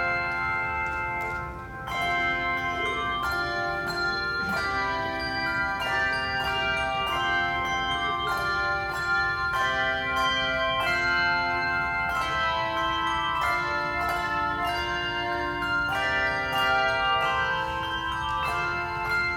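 Handbells playing a tune, several bells struck in turn and together, each note ringing on and overlapping the next, with a short drop in loudness just under two seconds in.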